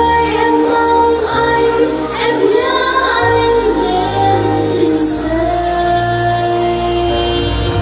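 A woman singing a slow melody of long held notes with vibrato over backing music with sustained bass notes.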